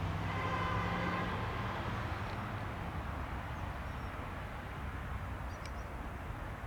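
Jet engines running at low power: a steady low rumble with a whine and hum that fade out about two seconds in.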